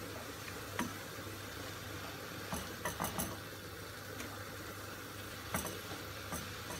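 Wooden spoon stirring sautéing chopped spinach in a non-stick pot, with several light clicks of the spoon against the pot scattered through the stirring, over a steady low hum.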